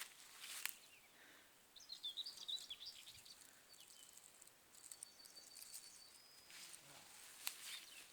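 Faint birdsong in a quiet pine forest: a quick run of high chirps about two seconds in and a thin, held high whistle around five seconds. A couple of sharp clicks come in between.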